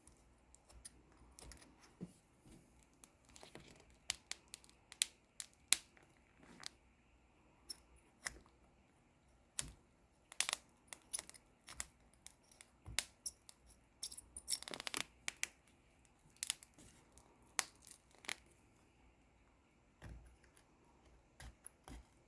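X-Acto knife blade cutting and scraping at the double-sided tape that holds a laptop LCD panel to its plastic back shell. The sound is faint, irregular clicks, scrapes and crackles, with a few louder scraping strokes about halfway through.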